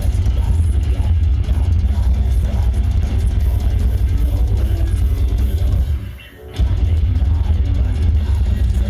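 Live metal band playing through a festival PA: distorted electric guitars and a drum kit with heavy bass drum, picked up loud and bass-heavy close to the stage. The music drops out briefly about six seconds in, then comes back.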